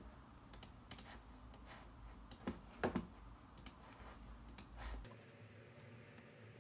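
Scattered, irregular clicks of a computer mouse and keyboard, faint, about a dozen in all. A low steady hum underneath cuts off about five seconds in.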